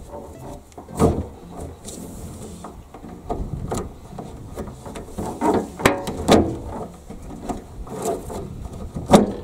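A twisted fibre rope being pulled, worked and cinched tight into a hitch, rustling and rubbing, with a few sharp knocks. The loudest come about a second in, around six seconds in, and just before the end.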